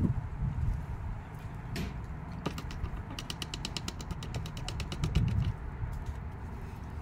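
Chicken pecking close to the microphone: a fast, even run of light taps, roughly a dozen a second, from about three seconds in to about five, with a few scattered taps before it.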